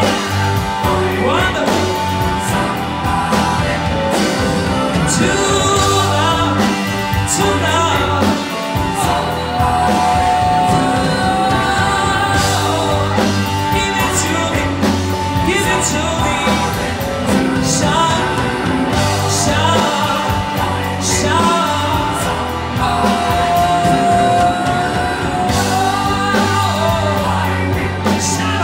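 A live rock band plays: a male lead singer over electric guitar and drums, heard from the audience in a theatre. The singer holds a long note about a third of the way in and again near the end.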